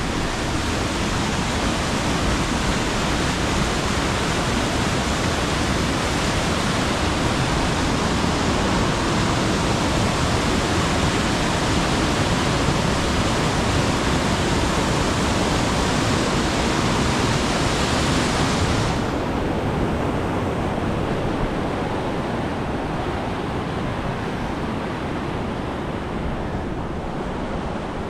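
Waterfall rushing steadily down granite rock in a dense, loud roar of water. About two-thirds of the way through, the hiss of the spray drops away suddenly, leaving a duller, quieter rush.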